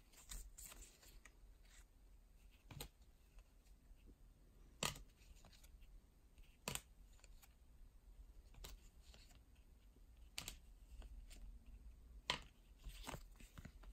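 Baseball trading cards being flipped through by hand: a faint, sharp snap of card stock roughly every two seconds as each card is slid off the front of the stack to the back.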